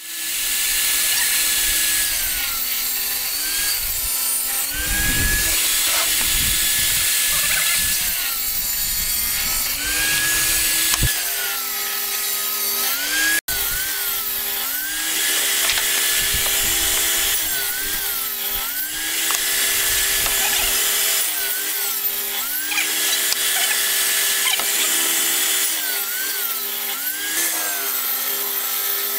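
Table saw running and ripping large wooden sheets. Its whine sags in pitch each time the blade bites into the board and climbs back up as it frees, over and over through a steady cutting hiss.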